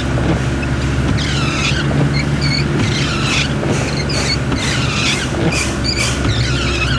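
A vehicle driving along a wet street, its engine a steady low hum, with short high squeaks recurring every second or so.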